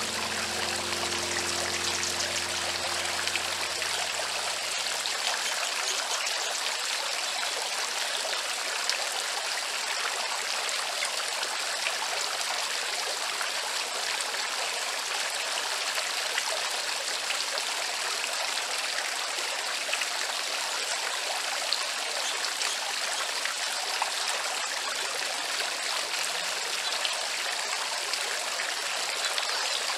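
Water from a small tiered garden fountain splashing and trickling steadily into its birdbath basin and spilling over the rim.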